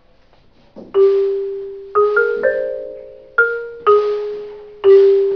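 Xylophone with wooden bars struck with mallets: about seven single notes in a short, slow tune, each ringing and fading away, the first about a second in and the last near the end.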